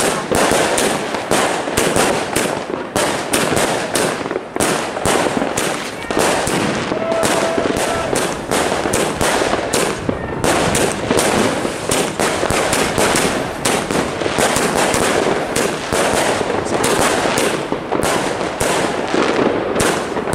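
Tristar Midnight Heroes 100-shot fireworks cake firing in a rapid, unbroken string of shots and bursts, several a second, with no pause.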